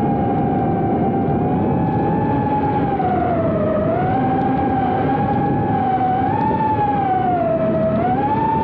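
The brushless motors and 3-inch propellers of a GEPRC Cinelog 30 FPV cinewhoop drone, heard from the camera on board, whining over a rush of prop wash. The pitch dips twice, about three and a half seconds in and again near the end, then rises back as the motors spin up.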